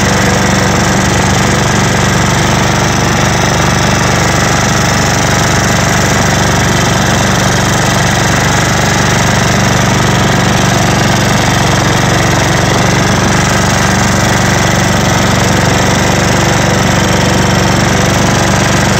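Simplicity Regent riding mower's newly swapped-in engine running steadily as the tractor drives across the lawn, with no mower deck fitted.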